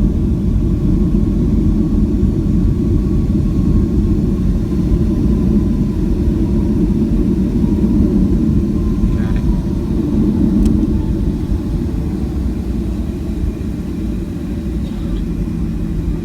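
Cabin noise of a Boeing 737-700 taxiing after landing: a steady low rumble from its CFM56-7B engines at idle and the airframe. About nine seconds in, a faint whine drops in pitch and the rumble eases a little.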